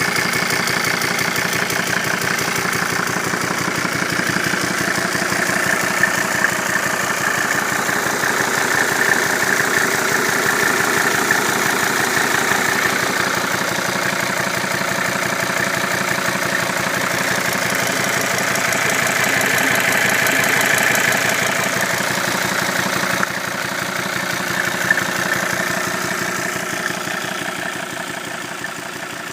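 Volvo V70 D5 five-cylinder turbodiesel idling steadily with a strange deep pumping sound. The owner found the cause to be a failed hydraulic valve lifter, broken in two. The sound drops a little about three-quarters of the way in and fades near the end.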